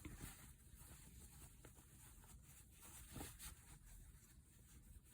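Near silence: faint room tone with a few soft clicks and ticks of handling, the clearest about three seconds in.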